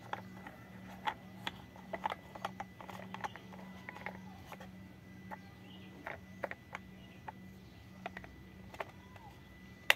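Irregular clicks and taps of hard plastic toy parts being handled: a take-apart toy train's wheels are pressed on and a plastic toy screwdriver works in its screws. One sharp click near the end is louder than the rest, over a steady low hum.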